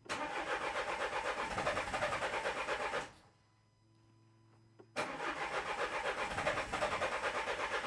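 Renault 1.5 dCi diesel engine's starter cranking it over with a quick, regular pulsing, twice: about three seconds, a pause of about two seconds, then a second crank starting about five seconds in. It cranks without starting because the common-rail fuel pressure is too low.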